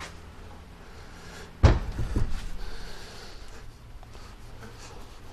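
A heavy thump about a second and a half in, followed quickly by two lighter knocks: the aluminium transmission case half being set down on the workbench after being split off the gearbox.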